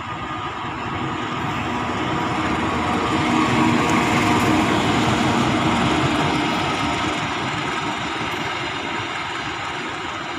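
A KAI CC 206 diesel-electric locomotive hauling a passenger train passes close by. Its engine and wheels on the rails grow louder to a peak about four seconds in. After that the coaches roll past and the sound eases slightly.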